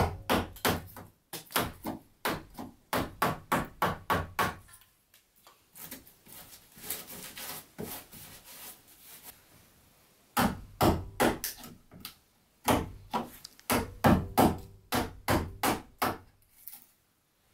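Wooden mallet striking a steel chisel, cutting a notch into a log beam: quick, even blows about three a second. After about four and a half seconds the blows break off for several seconds with only faint noise, then a second run of blows follows.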